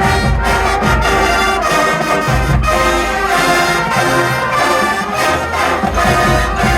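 High school marching band playing: the brass section holds loud sustained chords over regular drum strokes.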